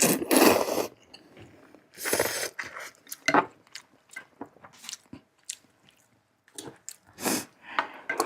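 Close-up chewing and mouth sounds of someone eating, with a few louder noisy bursts and many short wet clicks between them.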